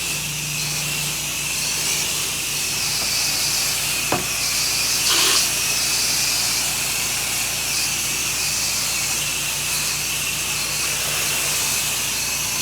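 Pressure washer wand spraying water onto a house wall: a steady hiss, with a single sharp click about four seconds in and a brief brighter gush about a second later.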